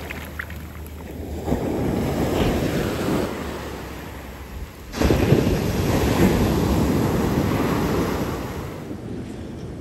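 Ocean surf breaking on the shore in two surges: a smaller wave about a second and a half in, then a bigger one that comes in suddenly about five seconds in and washes on for a few seconds. Wind buffets the microphone.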